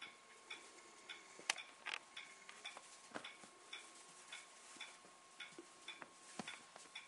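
A clock ticking steadily, a little under twice a second, with a few irregular louder taps and rustles from puppies scuffling on a puppy pad.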